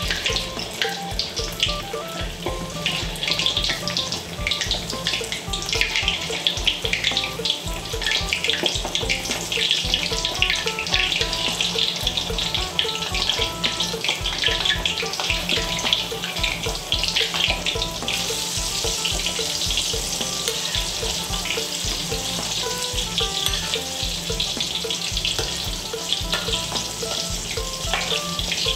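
Tod man, pork and shrimp cakes wrapped around yardlong beans and baby corn, deep-frying in hot oil in a wok, with a steady dense sizzle and crackle. About two-thirds of the way through the sizzle turns brighter and more even.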